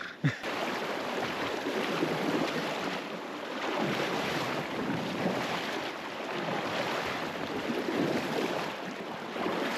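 Water splashing and rushing around a kayak being paddled, swelling and easing every second or so, with wind buffeting the microphone.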